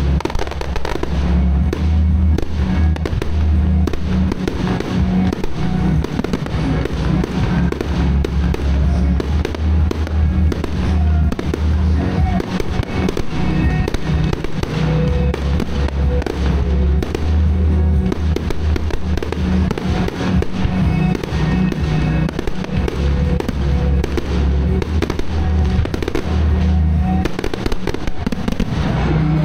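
Aerial firework shells bursting in a dense, continuous run of bangs and crackles, with music from the park's PA system playing underneath.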